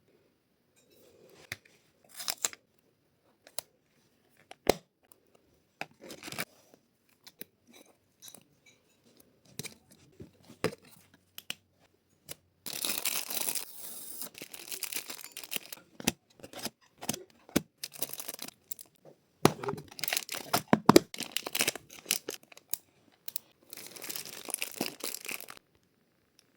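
Packaging being handled and torn open: scattered sharp clicks and taps, then three longer stretches of tearing and rustling.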